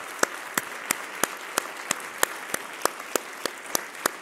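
Audience applauding, with one clapper close by standing out in sharp, evenly spaced claps about three a second.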